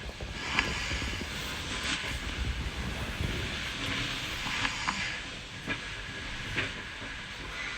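A sleeping person breathing heavily and snoring: slow, airy breaths a few seconds apart, with small clicks and snorts in between.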